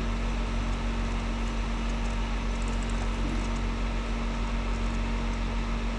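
Steady background hiss with a low electrical hum from the recording setup, with no other events.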